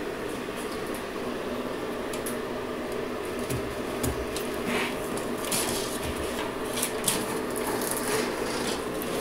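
Steady low hum throughout, with scattered soft rustles and clicks from about two seconds in.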